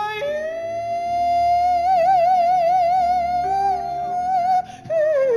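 Woman singing gospel, holding one long high note for about four and a half seconds with a wide vibrato in the middle, then sliding down to a lower note near the end, over steady low accompaniment.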